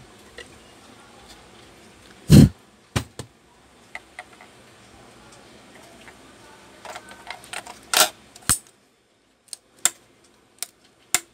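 Hard plastic knocks and clicks as a battery holder loaded with four AA cells is handled and pushed against an automatic soap dispenser's plastic housing to lock it in. One loud thump about two and a half seconds in, then a scatter of short, sharp clicks.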